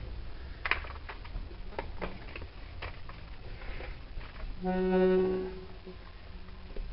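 Clicks and knocks of a 120-bass accordion being handled and taken apart, then, about four and a half seconds in, one held accordion reed note sounding for about a second as air passes through it.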